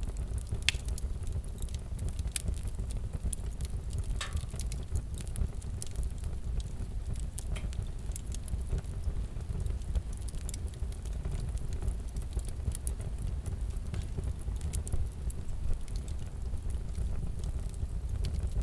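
Crackling log fire: scattered sharp pops and snaps over a steady low rumble.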